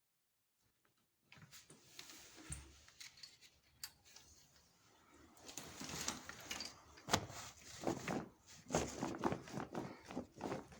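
Handling noises: irregular rustling with knocks and clicks. They start after about a second of silence and grow busier and louder after about five seconds.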